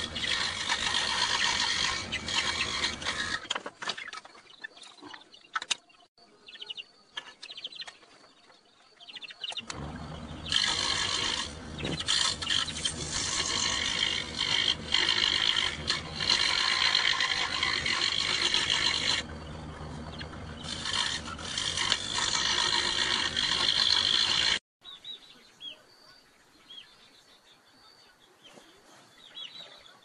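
A loud power tool runs in two long spells with a quieter gap between, then cuts off abruptly. Faint bird chirps follow near the end.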